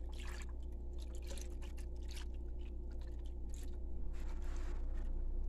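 Liquid clear gelatin poured over gelatin cubes in a plastic mould, with soft, irregular wet splashing and trickling over a steady low hum.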